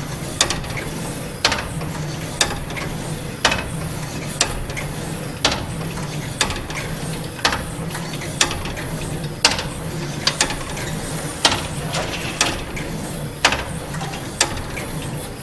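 Large grasshopper escapement of the Corpus Clock ticking: the pallets catch the big escape wheel with a sharp click about once a second, a few of them doubled. A low steady hum runs underneath.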